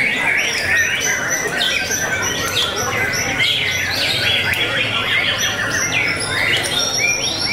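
White-rumped shamas (murai batu) singing: a dense, unbroken stream of rapid whistled and chattering song phrases, several birds overlapping.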